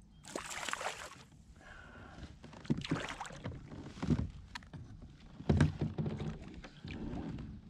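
Irregular knocks and bumps on a plastic fishing kayak, with splashes of water, while a hooked smallmouth bass fights beside the boat. The loudest knock comes about five and a half seconds in.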